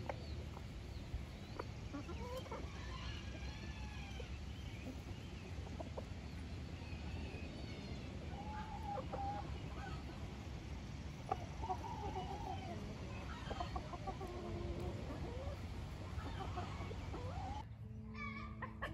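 Backyard chickens clucking, with short calls that rise and fall in pitch, over a steady low background noise. Music comes in near the end.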